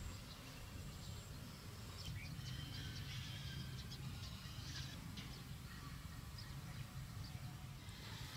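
Outdoor field ambience: a steady low rumble with faint, scattered bird chirps, mostly in the first half.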